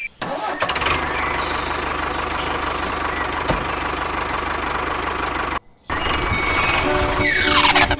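Tractor-style engine idling with a steady knocking chug. It cuts out briefly about two-thirds of the way through, and a fast falling swoosh comes near the end.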